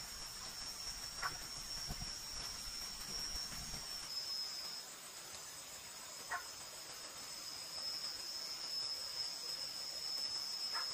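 Chorus of night insects trilling steadily at a high pitch, with three faint short ticks spread through it.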